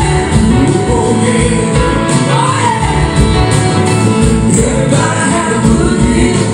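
Live soul-rock band playing: drums, electric guitars and a horn section of saxophone, trumpet and trombone, with singing.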